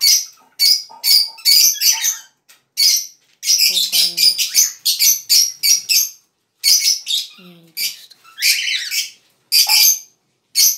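Pet parrots in cages, cockatiels among them, chirping and calling shrilly, call after call with short breaks, some in quick runs.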